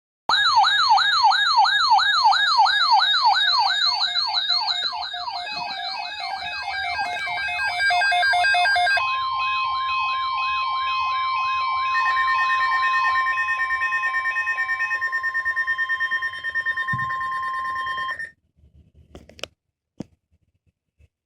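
Layered electronic emergency alert tones: a fast siren-like warble, rising and falling about four times a second, for roughly the first nine seconds. It gives way to steady high-pitched tones, which cut off abruptly about 18 seconds in.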